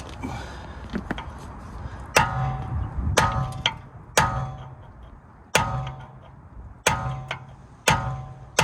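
Hammer blows on steel, six sharp strikes about a second apart, each ringing out briefly: hammering a stuck BMW E92 driveshaft to free it from the hub.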